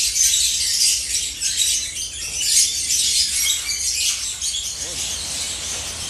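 A flock of peach-faced lovebirds chattering, with many shrill chirps overlapping and easing off a little near the end.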